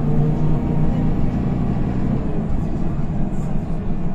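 Diesel engine and drivetrain of a Higer KLQ6129GQ2 city bus running under way, heard inside the passenger cabin: a steady low rumble with a pitched hum that fades about halfway through.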